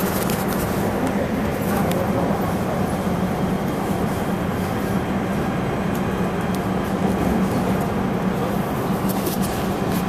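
Steady rumble and hum inside a PA-5 PATH subway car, with a few faint clicks.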